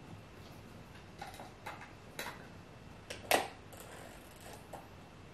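Scattered light clicks and taps of small hard parts being handled, with one louder knock a little after three seconds in.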